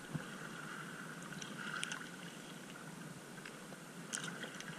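Small waves sloshing and lapping around the wader close to the microphone, with a few faint clicks and little splashes.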